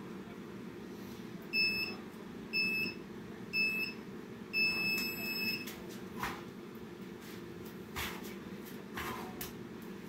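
Workout countdown timer beeping three short beeps about a second apart, then one longer beep as the start signal for a burpee set. After it, a few soft thumps of burpees on an exercise mat.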